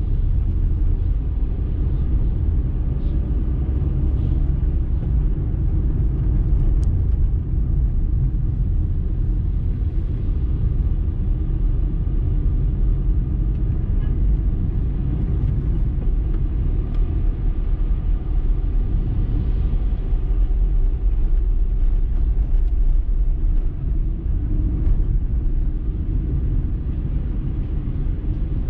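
Steady low rumble of a car driving slowly in city traffic: engine and road noise heard from inside the cabin.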